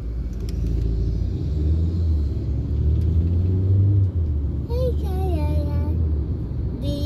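Car engine and road rumble heard from inside the cabin, rising as the car pulls away from a standstill and picks up speed. About five seconds in, a child's voice briefly sings out over it.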